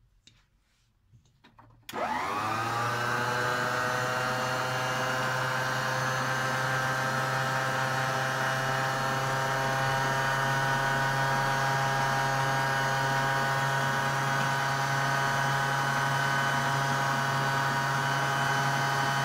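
A stand mixer's motor switches on about two seconds in, spinning up with a quick rising whine, then runs steadily with a hum and whine as it mixes sweet bread dough. A few faint clicks come before it starts.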